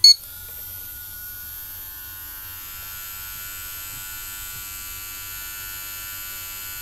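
A short electronic beep from the toaster's control board, then the small basket-lift gear motor of the Breville toaster starts and runs steadily with a whine that rises a little in pitch over the first couple of seconds. The motor is running free of the basket mechanism, so it never reaches its end stop and keeps going.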